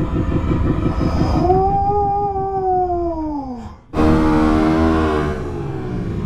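Dirt bike engine running at idle with a steady pulsing putter, and a long wail over it from about a second and a half in that rises slightly and then falls away. About four seconds in the sound cuts abruptly to a dirt bike engine running and easing off, then holding steady.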